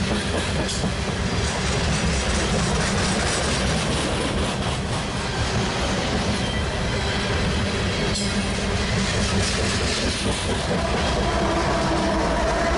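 A freight train of refrigerated boxcars rolling past close by, its steel wheels rumbling and clicking over the rail joints in a steady loud din. Near the end a diesel locomotive passes, adding a steadier engine tone.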